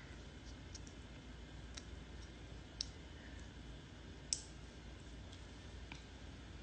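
A few faint, sharp clicks and taps, scattered over several seconds, over a low steady hum. The two sharpest clicks come about three seconds and four and a half seconds in.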